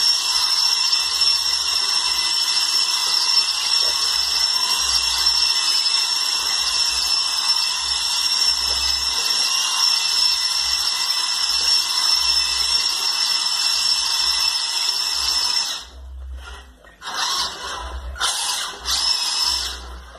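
Electric motor and drivetrain of a radio-controlled model semi-tractor whining steadily at a high pitch as it drifts on a wooden floor. About 16 seconds in the whine cuts out, then comes back in a few short bursts.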